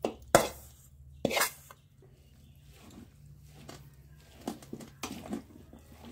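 Metal spoon clinking and scraping against a metal bowl while stirring lemon pieces into a thick, dry spice mixture. A few sharp knocks come in the first second and a half, then softer scrapes and taps.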